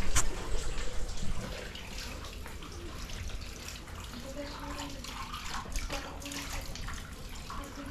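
Spring water running steadily from spouts into a stone trough, splashing over hands being washed in it, with a couple of sharp knocks right at the start.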